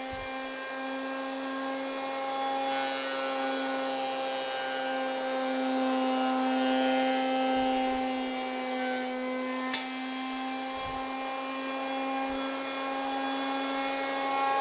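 Jointer running with a steady hum while a board is fed edge-down across the spinning cutterhead: from about two and a half seconds in to about nine seconds the knives cut with a hissing planing noise over the hum. A sharp click follows just after the cut ends.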